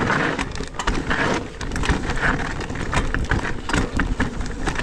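Electric mountain bike riding down a steep, rough trail: tyres rolling over dirt and roots, with frequent short clicks and knocks of bike parts rattling over the bumps.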